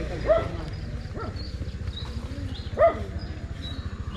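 A dog barking in short yips, three times, the last and loudest about three seconds in, over a steady low rumble.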